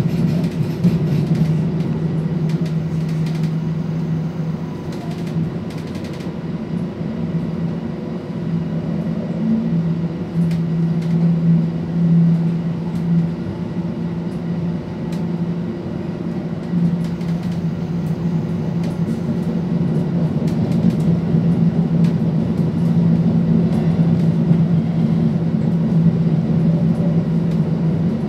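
Interior sound of a Regio-Shuttle diesel railcar under way: a steady low engine drone mixed with wheel-on-rail running noise, with occasional faint clicks from the track.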